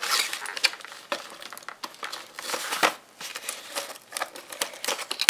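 Cardboard and plastic toy packaging being handled, with irregular crinkling, rustling and scattered sharp clicks; the loudest rustle comes about halfway through.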